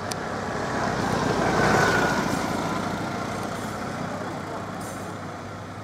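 A road vehicle passing by: a rushing noise that swells to a peak about two seconds in and then fades away.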